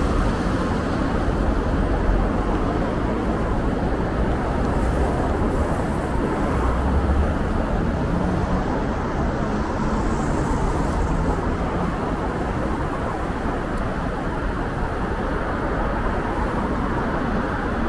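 City street traffic noise: a steady rumble of passing road vehicles.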